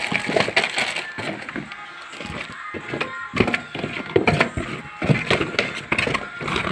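Cardboard product boxes being shifted and pulled out of a stack by hand: irregular knocks, scrapes and rustles as the boxes bump and slide against one another.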